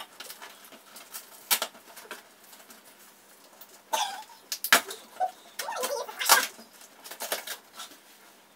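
Knife cutting through layers of packing tape on a cardboard mystery box: uneven scratching, slicing and tearing sounds in short bursts, with the box rustling and shifting.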